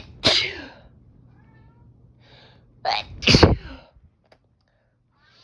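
A person's sneezing fit: two sneezes, each a quick catch of breath then an explosive 'choo', one right at the start and a louder one about three seconds in. A cat meows faintly between them.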